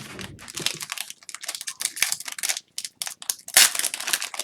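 Upper Deck SPX hockey card pack wrapper being torn open and crinkled by hand: a rapid, irregular run of crackles, loudest about three and a half seconds in.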